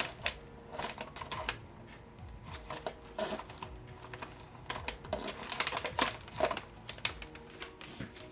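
Keys clacking on a keyboard: a run of irregular clicks and taps, thickest about six seconds in.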